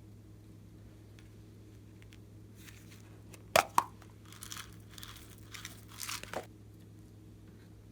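Glossy slime being worked by hand: two sharp pops about halfway through, then about two seconds of crackling.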